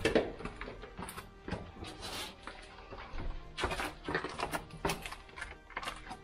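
Footsteps scuffing and knocking on steep cellar stairs, with clothing rustle and small irregular knocks and scrapes as two people climb down a narrow stairway.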